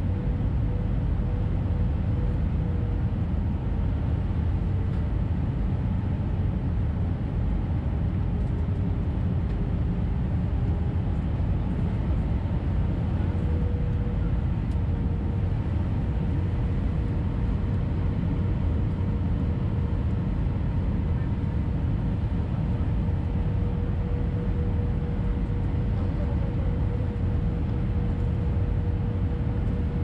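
Airbus A320 cabin noise at a window seat by the wing in flight: a steady deep rumble of airflow and the CFM56 engines, with a thin engine whine near the middle of the range that wavers slightly in pitch.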